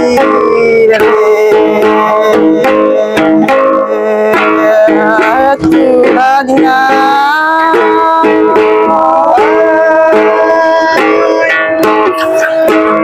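A đàn tính, a long-necked gourd lute, plucked in a steady pattern under a voice singing long, sliding phrases.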